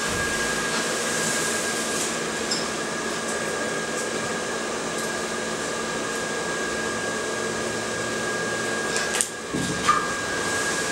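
A steady whirring, fan-like drone with a steady high whine over it. It dips out for a moment near the end, and a couple of clicks follow.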